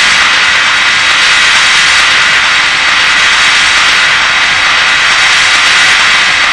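A loud, steady, jet-like noise wash from a live techno DJ mix, with the beat dropped out: a breakdown in the set.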